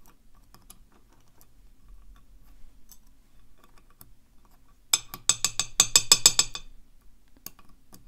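Small metal lock parts and a steel pick working in an OnGuard Beast padlock core, with the sliders being picked out: faint scattered metallic ticks, then about five seconds in a quick run of about a dozen sharp, ringing metallic clicks lasting a second and a half, and a couple of single clicks near the end.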